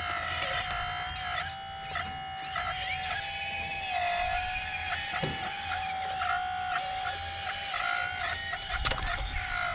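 Small electric hydraulic pump motor of an RC excavator whining steadily, its pitch sagging briefly several times as the arm works under load. Birds chirp over it.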